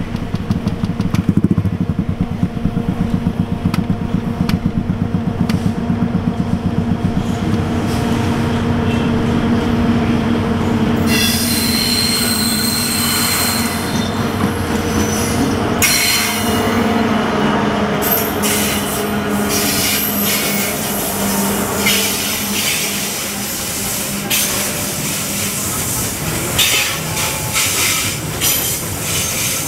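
Diesel locomotives hauling a long coal train pass close by, their engines giving a low, pulsing sound. After that the coal hopper wagons roll past, with a high wheel squeal starting about eleven seconds in and the repeated clicks of wheels over rail joints.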